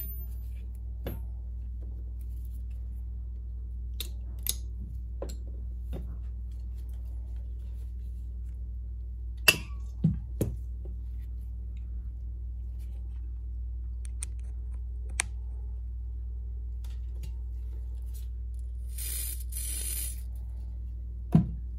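Scattered light clicks and taps of small parts and tools being handled, with one sharp click about nine and a half seconds in, over a steady low hum. Near the end, an aerosol spray can hisses for about a second and a half as adhesive remover is sprayed to loosen the battery's adhesive.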